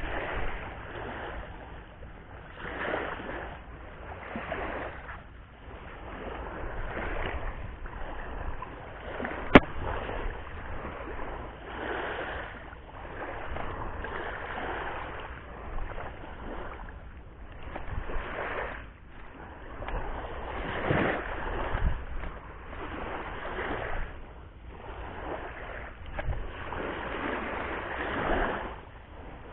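Sea waves washing onto the shore, rising and falling every two to three seconds, with one sharp click about ten seconds in.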